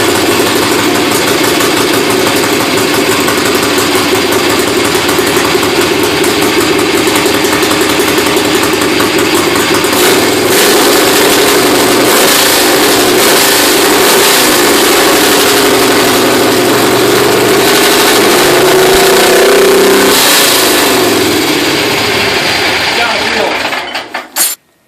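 Kohler CH730 V-twin engine fitted with a 1.2 Vogel carburetor, running loud and steady, with changes in engine speed about ten and twenty seconds in. It dies away and cuts off near the end.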